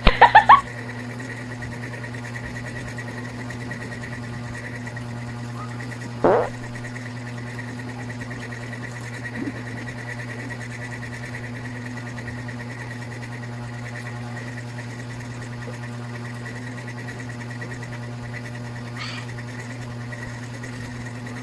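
A steady machine hum, with a low drone and a fainter high whine. Three sharp louder sounds come right at the start, and a short sound rising in pitch comes about six seconds in.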